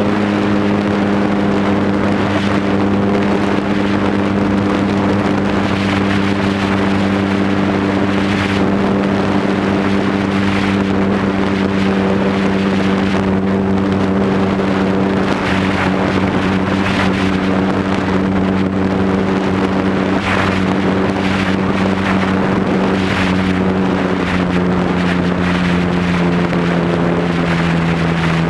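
Cub aircraft's motor and propeller droning steadily in flight, heard from a camera mounted on the plane, with wind on the microphone. The pitch sags a little near the end.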